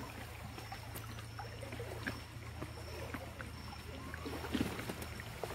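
A woven bamboo coracle being paddled on a river: faint paddle strokes and water splashing against the hull, over a steady low hum.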